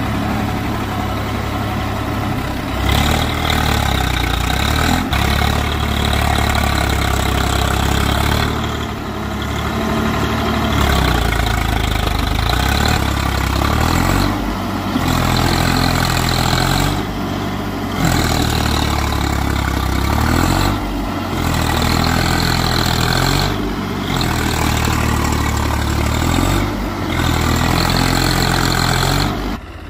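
Swaraj 744 FE tractor's three-cylinder diesel engine running hard under load while bogged in deep mud. From about halfway, its note dips and comes back every few seconds.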